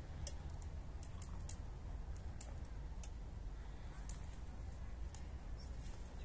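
Scattered sharp, irregular clicks and crackles over a steady low rumble.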